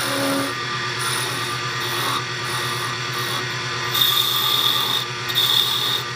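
Benchtop wood lathe running with a steady motor hum while a chisel cuts the spinning wooden crochet hook blank. From about four seconds in, the tool bites harder in short, louder scraping cuts, about one a second.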